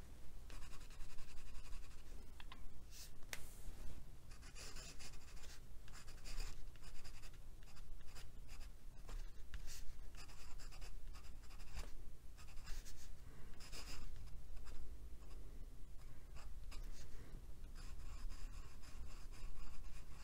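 Glass dip pen nib scratching across paper as it writes, in short irregular strokes.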